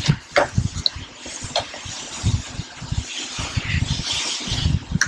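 Packaging being handled as a doll is worked free of its box: irregular low bumps, a few sharp clicks and a stretch of rustling.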